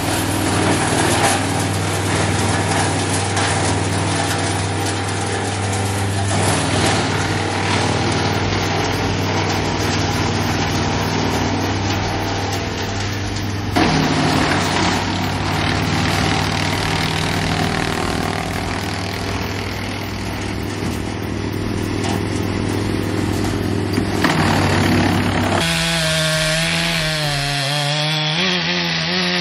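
Petrol chainsaw running and cutting through timber. The engine pitch wavers up and down near the end.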